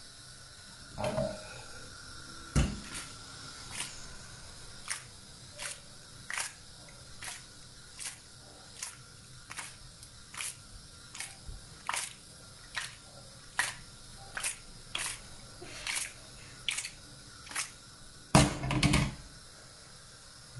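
Thick pecorino cream sauce simmering with pasta in a frying pan over a gas flame, bubbles popping with soft plops about once a second. Near the end the pan makes a louder clatter as it is moved.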